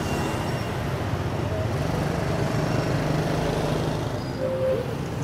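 Steady street traffic noise, with an engine hum passing for a couple of seconds in the middle.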